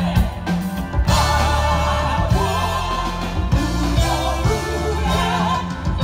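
A live African band playing a song, with a woman singing the lead; the music grows fuller and the singing comes in about a second in.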